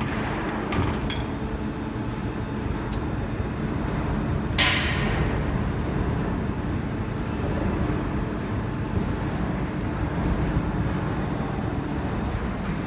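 Plastic injection moulding machine running with a steady low mechanical hum. A short, sharp hiss comes about four and a half seconds in, and there are a few light clicks near the start.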